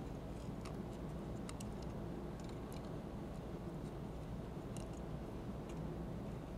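Faint, scattered ticks and clicks of a hex-key screwdriver turning small metric machine screws into a CNC router holder, over a steady low background hum.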